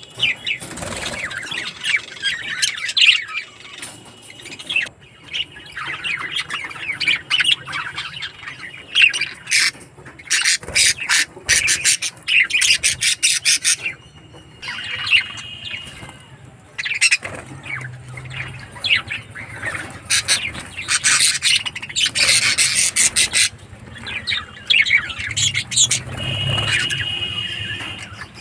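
Pet budgerigars chirping and chattering continuously, a busy mix of rapid tweets and squawks.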